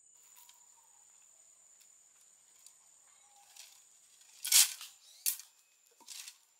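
Insects trilling steadily on one high note. Over it come a few short noisy sounds, the loudest about halfway through and two more soon after.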